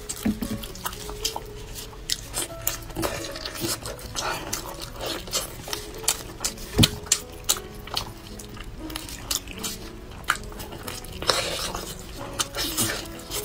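Close-up wet smacking and sticky clicks from eating: gloved hands tear braised meat off the bone while the mouth chews, in short irregular snaps with a few louder ones.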